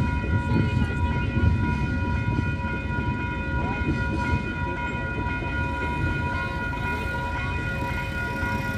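Freight train rumbling over the level crossing, easing off gradually as it clears, under several steady high-pitched tones.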